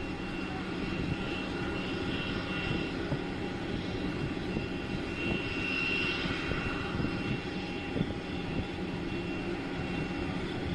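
Jet aircraft engines running: a steady rumble with a thin, high turbine whine held throughout.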